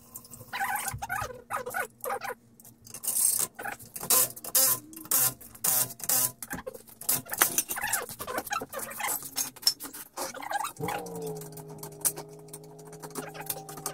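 Clinks, taps and squeaks of hand tools and metal parts as a car's rear shock absorber and coil spring are fitted. A steady hum starts suddenly near the end.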